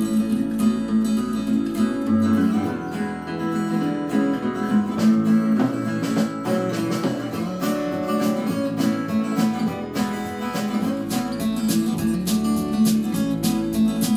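A pop song playing through a portable Bluetooth speaker and picked up from a few feet away: an instrumental stretch of strummed acoustic guitar over a steady beat, the deep bass dropping out for several seconds in the middle.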